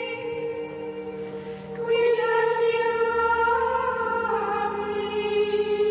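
Slow background music with singing on long held notes, growing louder about two seconds in.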